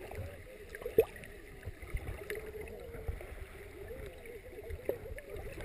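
Muffled water noise heard through a submerged camera, with a sharp knock about a second in and a few lighter clicks, and faint muffled voices from the people standing in the water.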